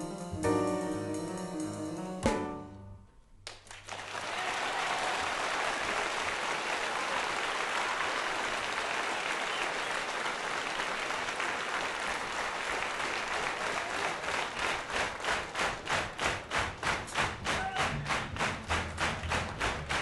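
A jazz piano trio of piano, double bass and drums finishes its tune on a final chord. After a brief hush, the audience applauds loudly, and later the applause turns into rhythmic clapping in unison.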